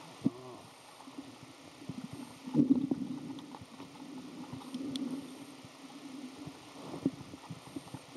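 Muffled seawater sloshing and gurgling, heard with the microphone under the surface, with many small knocks and clicks scattered through it. It is loudest about two and a half to three seconds in.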